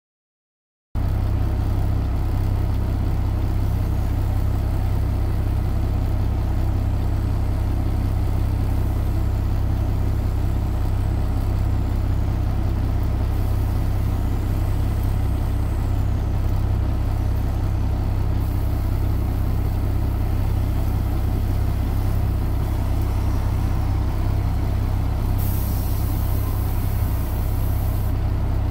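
Diesel engine of a Kenworth T800 running at idle, heard from inside the cab as a steady low rumble. A burst of high hiss lasts a couple of seconds near the end.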